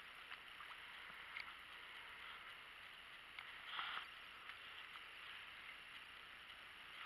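Near silence: faint steady outdoor background hiss, with a few light clicks and a brief louder rustle about four seconds in.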